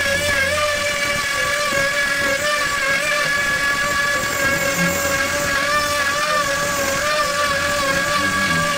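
Bosch POF 1400 ACE plunge router running at speed while being guided through a cut: a steady high motor whine whose pitch wavers slightly now and then under load.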